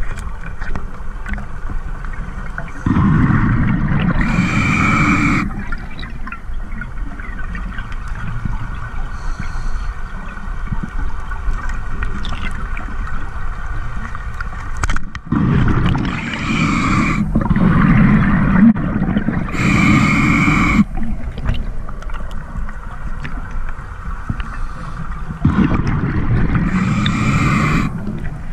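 Underwater water noise against a scuba diver's camera housing, broken by three long bursts of gurgling exhaled bubbles from a scuba regulator: one about three seconds in, a longer one in the middle and one near the end.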